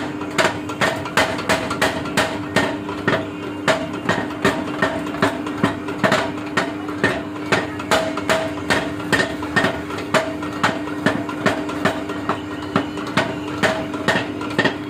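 Steady hammer blows on the steel of a JCB chisel being repaired, about three strikes a second, each ringing briefly, over a steady hum.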